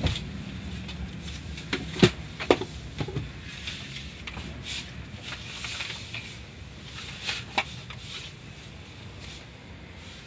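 Low steady rumble inside a slowly moving car, with a handful of sharp knocks and rubbing clicks: the loudest pair about two seconds in, two more about seven seconds in.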